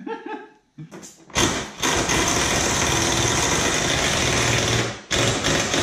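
Handheld power tool working on the makeshift metal bumper, running in one long burst of about three and a half seconds, stopping for a moment, then starting again near the end.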